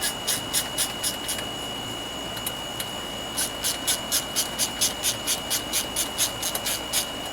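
Hand ratchet working a bolt on a lawnmower engine, clicking in quick even strokes about four a second; it stops for a couple of seconds midway, then starts again.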